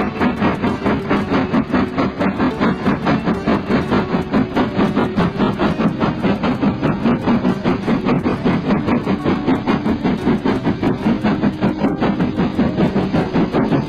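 Model train running along the layout track: a steady, fast rhythmic clatter of about five or six beats a second over a low steady hum.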